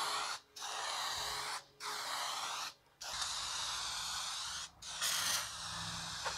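Rust-Oleum Turbo Can clear coat aerosol spraying with a steady hiss, in about six passes one after another, broken by brief pauses between strokes.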